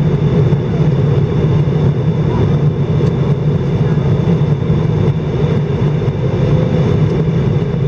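Steady cabin noise of an Airbus A319 airliner in flight: a constant drone of engines and airflow with a strong low hum.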